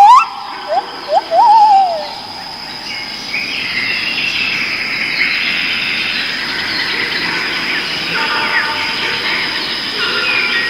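Rainforest birds calling: a few loud rising whistles and one wavering, falling whistle in the first two seconds, then a dense chorus of chirps and calls over a steady high-pitched hum.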